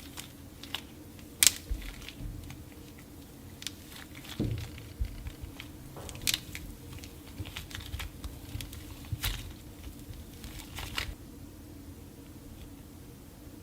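Dried clay snapping and crumbling in the hands: a scatter of sharp cracks and crunches, which die down over the last couple of seconds.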